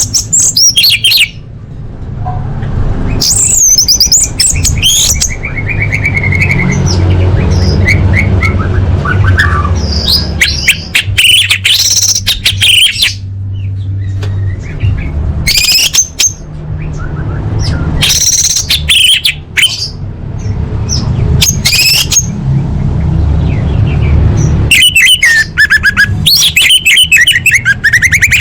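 Orange-headed thrush (anis merah) singing: bursts of quick, varied whistled and chattering phrases with short pauses between them, over a steady low rumble.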